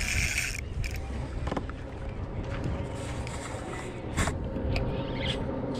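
Steady low rumble of traffic on a bridge overhead, heard from the water beneath it. A brief scraping rustle right at the start and a few sharp clicks and knocks come from a rod, reel and gear being handled in a kayak.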